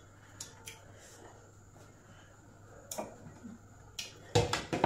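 A bowl being set down on a table: a few faint clicks, then a quick cluster of sharp knocks and clatter near the end.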